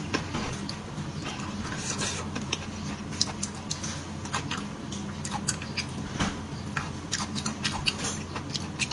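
Close-up eating sounds of soft beef bone marrow: wet chewing, lip smacks and sucking, heard as many small irregular clicks.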